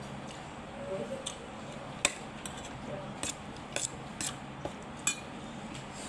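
A spoon clinking and scraping against a plate during a meal: a string of sharp clinks at uneven intervals, the loudest about two seconds in.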